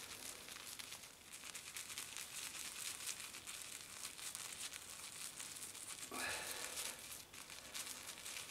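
Wet boar-bristle shaving brush rubbed back and forth over a Palmolive shaving stick: a faint, continuous scratchy rustle of bristles on soap as lather is loaded onto the brush.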